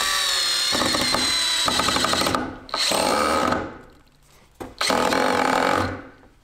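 Cordless drill driving a decking screw down into a wooden 2x4. The motor runs in three bursts: a long one, a short one, and after a pause of about a second a third that stops near the end.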